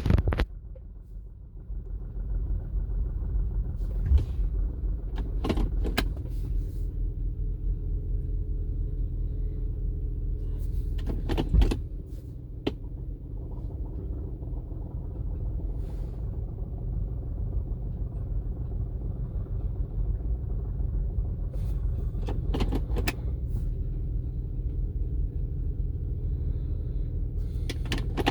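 Honda car engine idling steadily, with several short clicks and clunks at intervals, in places two or three close together: the noise the owner hears when shifting the car into park.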